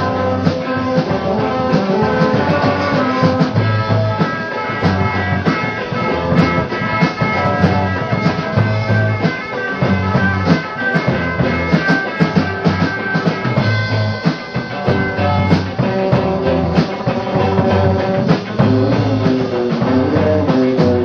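Live recording of a rock band playing an instrumental stretch of the song: drum kit, bass guitar and guitars, with held high notes ringing over a repeating bass line and steady drum beats.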